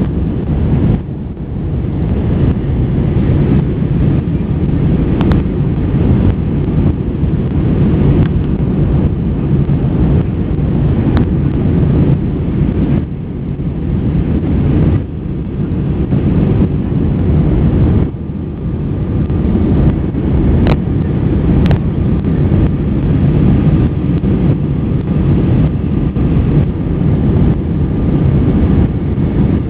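Airbus A320 cabin noise in flight: a steady low drone of the engines and airflow, heard from a window seat over the wing. A few faint clicks sound over it.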